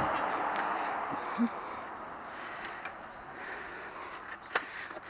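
Scrap aluminum pieces being handled: a few faint knocks and clinks over an even hiss that fades over the first couple of seconds.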